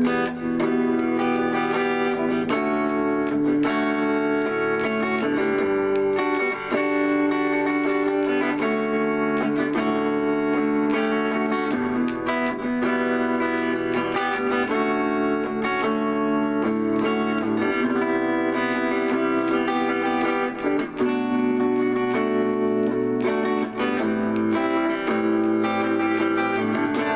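Electric guitar played on a clean tone, a continuous run of improvised chords and melody notes.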